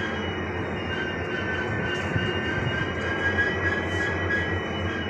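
WDG4 diesel-electric locomotive's 16-cylinder two-stroke EMD engine running steadily at close range, with a thin high tone that comes and goes above the engine note.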